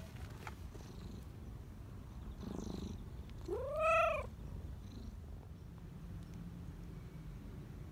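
Black Persian cat purring steadily in a low rumble while being petted, letting out one rising-then-falling meow about halfway through.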